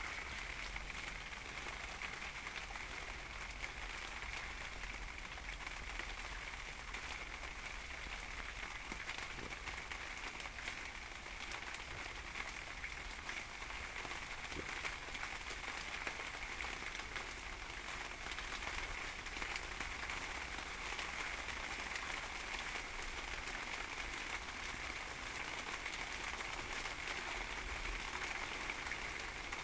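Steady rain falling on a quilted down jacket and wet stone steps: an even hiss full of fine drop ticks.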